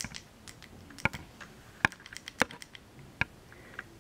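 A dozen or so sharp, light clicks and taps at uneven intervals, the loudest about two seconds in.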